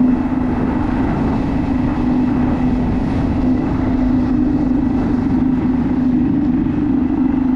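A kayak's motor running steadily at one unchanging pitch while the kayak travels, with a constant low rumble of water and wind beneath it.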